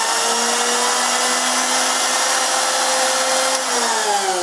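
Palm router motor spinning a grinding wheel as a toolpost grinder: it runs at speed with a steady whine over an airy hiss, then is switched off about three and a half seconds in and winds down in falling pitch. The wheel is running out of balance on its arbor.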